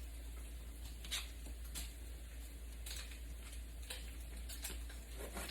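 Kitchen knife tapping on a cutting board while dicing an onion: scattered light taps about once a second, over a low steady hum.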